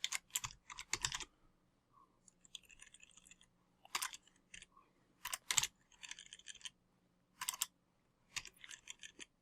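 Computer keyboard typing in short runs of keystrokes with brief pauses between them.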